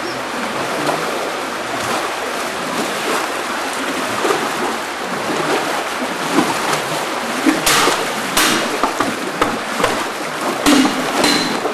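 Water rushing steadily down a concrete coffee washing and grading channel, carrying coffee beans along. A few sharp splashes stand out about two thirds of the way through and again near the end.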